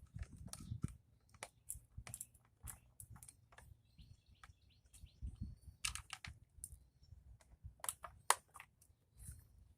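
Irregular light clicks and taps of hands and tools working at a small scrap appliance's plastic housing and screws as it is taken apart, with faint bird chirps behind.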